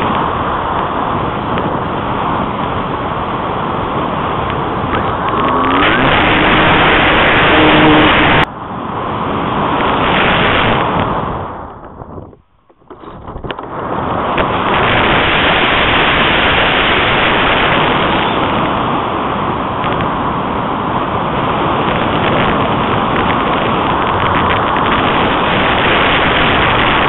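Airflow rushing over the onboard keychain camera's microphone on a model glider in flight, a loud, steady rush. It cuts off suddenly about eight and a half seconds in, fades to near quiet for about a second around twelve seconds in, then builds back up and holds.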